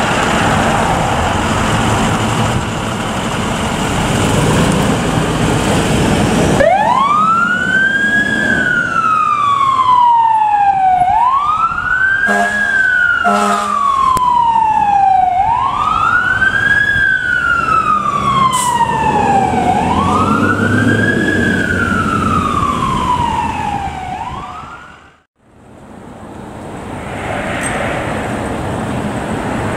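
A fire engine's diesel running as it pulls out, then its siren starts wailing, each cycle a quick rise and a slower fall, about every four seconds. Two short horn blasts sound over the siren partway through. After a sudden cut, another vehicle's engine runs.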